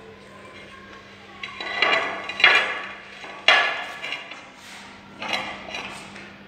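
Ceramic tile being tapped down into its bed of cement mortar: several sharp knocks with a short ring, irregularly spaced, starting about a second and a half in.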